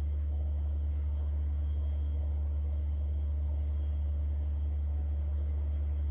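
Subwoofer playing a steady, deep low-frequency tone that shakes the water sitting on its cone into standing-wave ripple patterns.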